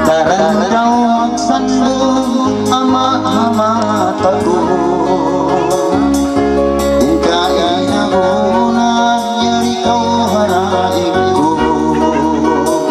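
A man singing a Tausug song into a microphone with a wavering vibrato, over an electronic keyboard playing sustained chords and bass with a steady drum beat.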